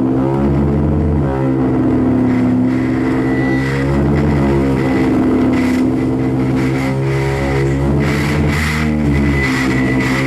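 Loud electronic noise-music drone: layered low droning tones under tones that sweep up and down in pitch, with a thin high whine that fades in and out and washes of hiss swelling over it.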